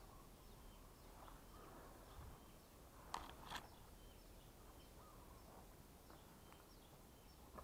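Faint forest ambience: short high bird chirps repeating on and off over a low hush, with two sharp crackles a little after three seconds in.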